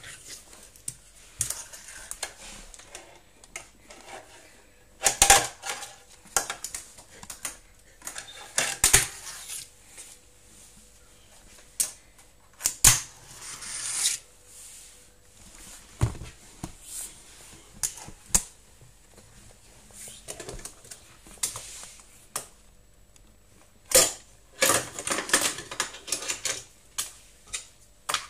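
A fingerboard clicking and clattering against a plastic toy ramp and a wooden tabletop, in irregular bursts of sharp knocks with quieter gaps between.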